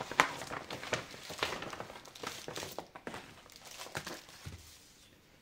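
Clear plastic kit pouch crinkling and rustling as hands handle it, in quick irregular crackles that die away near the end.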